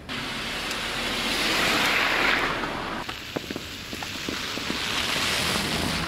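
Tyre hiss of a car driving past on a slushy, snow-covered street, swelling loudest about two seconds in and again near the end.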